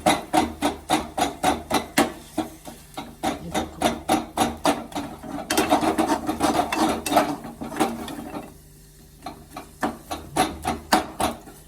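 Spatula knocking and scraping against a kadhai in quick strokes, about four a second, breaking up and stirring lumps of jaggery as they melt with grated ginger. The strokes stop briefly about three-quarters of the way through, then resume.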